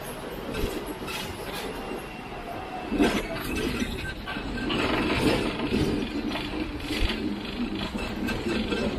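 Hong Kong electric double-decker tram running along its street track, heard from on board: a steady rumble of the wheels on the rails with rattling and clinking, and a louder knock about three seconds in.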